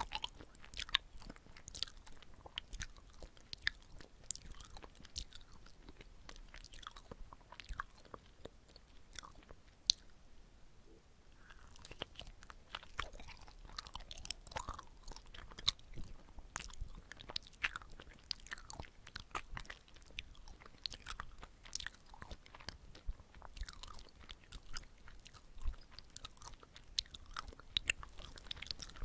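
Close-miked chewing of chapssal-tteok, a soft sticky rice cake filled with red bean paste: a steady run of wet mouth clicks and smacks at irregular intervals, with a short lull about halfway through.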